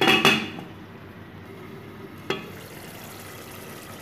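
A metal lid clatters twice as it is set on a metal cooking pot, then tomatoes frying in oil sizzle softly and steadily, with one sharp click about two seconds in.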